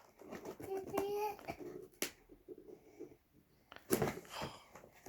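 A child's brief wordless vocalizing about a second in, then a sharp click and, near the end, a short burst of handling noise from a toy box being opened.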